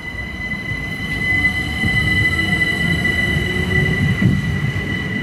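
Gatwick Express Class 387 electric train pulling away from the platform and gathering speed: wheels rumbling on the rails, growing louder about two seconds in, under a steady high whine.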